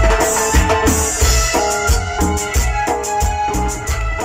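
Tropical cumbia music played by a live band: a keyboard melody over a steady drum beat.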